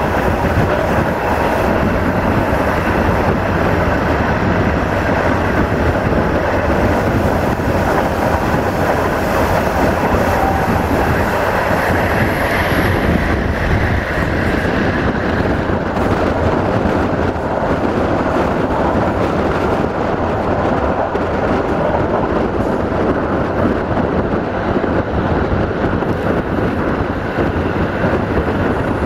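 Passenger train running at speed, heard from an open carriage window: a steady rumble of wheels rolling on the rails mixed with rushing air.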